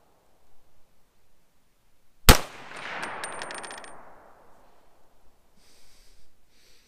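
A single shot from an AR-style rifle chambered in 300 Blackout, firing a supersonic 100-grain load, about two seconds in. The sharp report is followed by an echo that rolls away over about two seconds.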